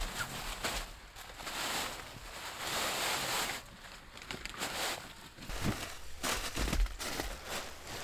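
Rustling of fabric and nylon with scattered clicks and a few low knocks as a folding camp cot is assembled and handled. The rustle is loudest a few seconds in, and the knocks come in a cluster past the middle.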